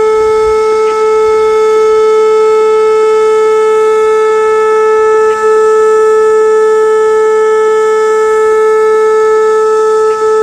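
Whelen WPS-2809 electronic outdoor warning siren sounding a loud, steady tone at about 435 Hz, with no rise or fall in pitch, dipping briefly three times.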